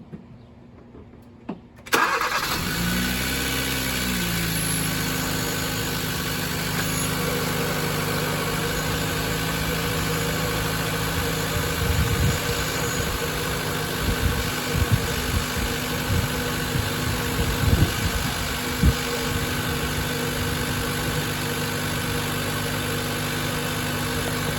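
2014 Hyundai Veloster Turbo's 1.6-litre turbocharged four-cylinder engine started about two seconds in. It flares up briefly in revs, then settles into a steady idle, with a few short knocks in the middle. This is the first start after new ignition coils were fitted to cure a misfire on cylinders 1 and 3.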